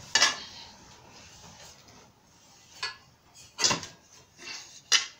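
Metal grill leg parts being handled and knocking against each other: a few sharp clanks, the loudest just after the start, again a little past the middle and just before the end.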